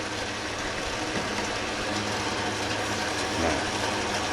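Metal lathe running, its cutting tool taking a pass on a spinning piece of scrap metal: a steady mechanical noise with a low hum.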